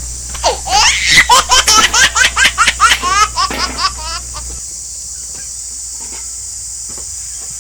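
Hearty laughter in a rapid string of ha-ha pulses lasting about three and a half seconds, then stopping.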